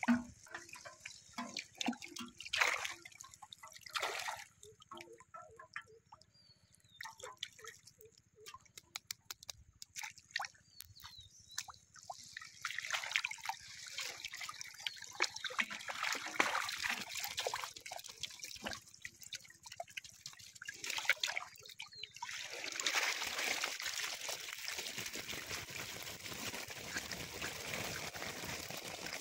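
Shallow pond water splashing, sloshing and dripping as a fishing net is worked through it by hand. About two-thirds of the way in this gives way to a denser, steady splashing patter.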